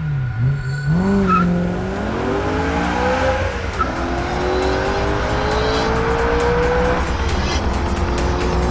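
BMW E92 M3's V8 engine revving, its pitch swinging up and down through the first few seconds, then holding one long, slowly rising note as the car accelerates. Background music plays underneath.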